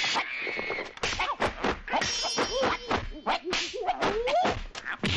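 Kung fu fight sound effects: a quick run of whip-like punch and kick hits and whooshes. Gliding vocal cries come in between the hits from about two seconds in.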